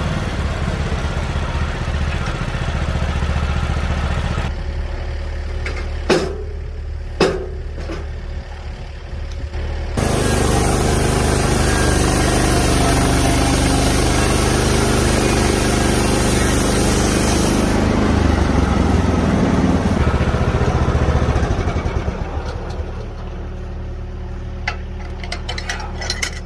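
Engine-driven sawmill running and cutting larch timber into stair treads. The blade cuts loudly from about ten seconds in until about eighteen, and the engine runs on more quietly before and after. Two sharp knocks come around six and seven seconds in.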